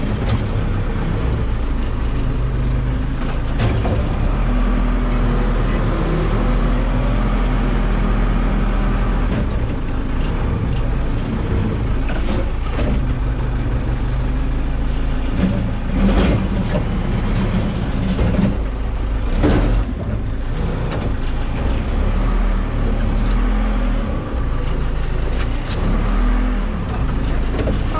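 Backhoe's diesel engine running steadily, with a few sharp knocks of the work, the loudest near the middle.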